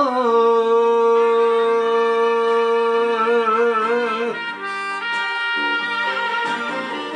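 Enka karaoke music: a long held note with vibrato ends about four seconds in, then the backing band's horns carry on into the instrumental interlude.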